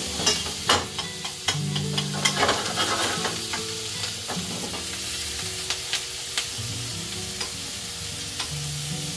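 Melted butter sizzling in a frying pan as swordfish fillets are basted, with repeated clinks of a metal spoon against the pan, most frequent in the first few seconds.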